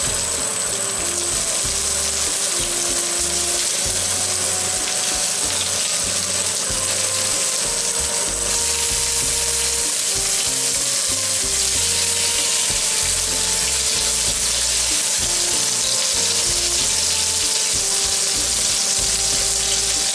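Lamb burger patties sizzling in oil on a ridged griddle pan: a steady frying hiss that grows a little louder about eight seconds in.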